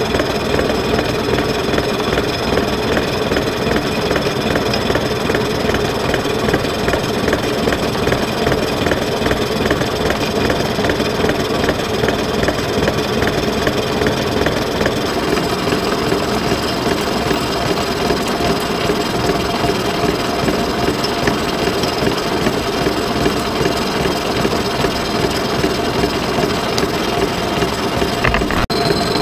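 Defiance horizontal boring mill taking a face-milling cut with a 5-inch face mill. The spindle runs steadily and the cutter inserts chatter rapidly through the metal. About halfway through, some higher-pitched tones join the cutting noise.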